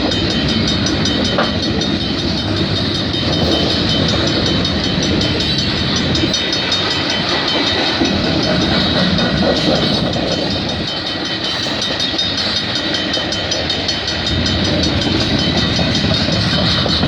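Canadian Pacific freight train cars rolling past at speed: a steady, loud rumble of steel wheels on the rails with a clickety-clack over the rail joints.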